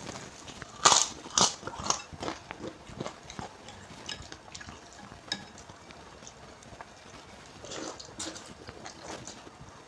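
Close-up crunching and chewing of instant noodles with raw bean sprouts. The loudest crunchy bites come about a second in, with softer mouth clicks after and another burst of crunching near the eight-second mark.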